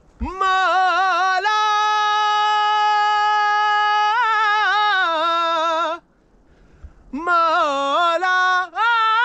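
A man singing alone without accompaniment, at full voice in long, high held notes with vibrato; he breaks off about six seconds in and starts again about a second later. His voice is cracking, which he puts down to a throat gone hoarse from eating snow.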